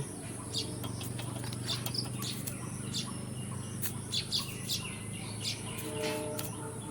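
Small birds chirping repeatedly in short high calls over a steady low hum.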